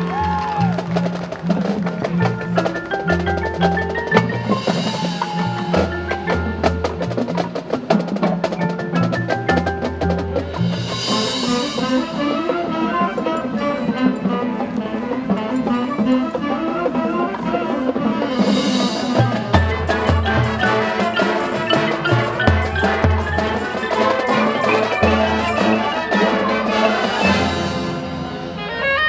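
High school marching band playing its field show, with the front ensemble's marimbas and other mallet percussion prominent over the low band parts. The music swells in high shimmer about four times.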